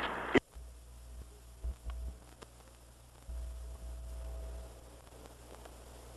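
A radio announcer's voice cuts off abruptly just after the start with a click. What is left is the low mains hum and faint hiss of a reel-to-reel tape recording of an AM broadcast, with a few soft clicks. The hum swells louder for about a second and a half near the middle.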